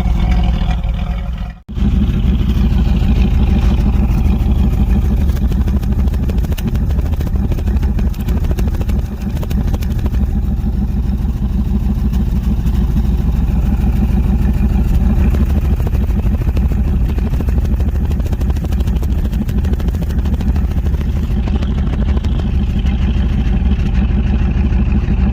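First-generation 305 small-block Chevy V8 running steadily with the car under way, a deep continuous rumble. The engine is skipping, which the owner calls a misfire. The sound cuts out abruptly and comes back about a second and a half in.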